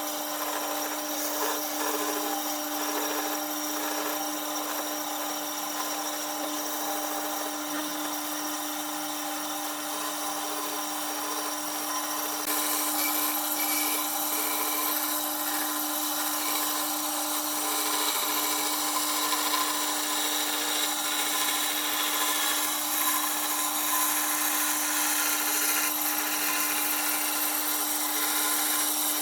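A power tool running steadily with a constant motor hum while it works wood with a rubbing, abrasive sound. It gets louder and hissier about twelve seconds in.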